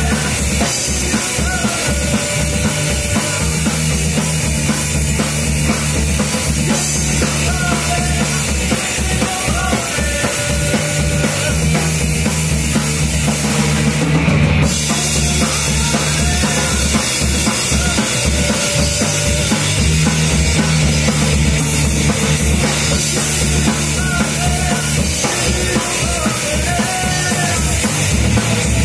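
Live rock band playing loud: a Ludwig drum kit keeping a steady beat under amplified electric guitar and bass guitar.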